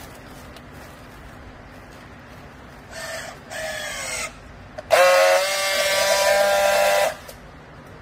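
Handheld powered strapping tool on a plastic strap: two short motor whirs about three seconds in, the second falling in pitch as it tensions the strap, then a loud, steady buzz of about two seconds that stops abruptly as it friction-welds the strap seal.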